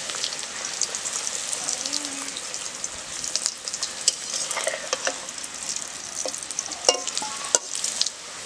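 A green-pea kochuri deep-frying in hot oil in an iron karahi, the oil sizzling and crackling steadily as a spatula presses and bastes it while it puffs up. A few sharp clicks of the spatula against the pan come in the second half.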